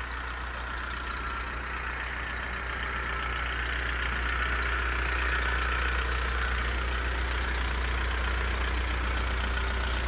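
A vehicle engine idling steadily: a constant low hum with a hiss above it that grows a little louder partway through.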